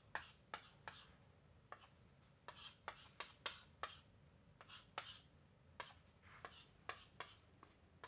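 Chalk writing on a chalkboard: faint, irregular short taps and scratches as letters are written stroke by stroke.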